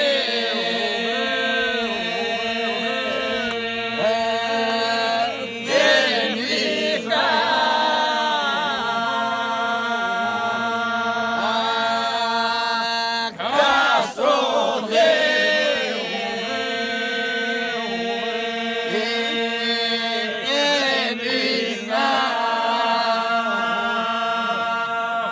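A group of men singing an unaccompanied Greek polyphonic folk song in the Epirote style: several voices hold a steady drone while a lead voice carries a wavering, ornamented melody above it. The singing breaks off briefly for breath a few times.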